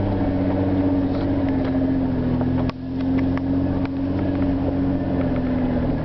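Car engine running steadily, heard from inside the cabin, with a brief dip in level about two and a half seconds in and a few light clicks.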